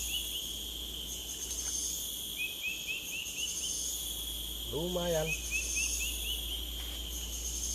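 Steady outdoor chorus of insects shrilling in several high bands, with two short runs of quick rising chirps a few seconds apart.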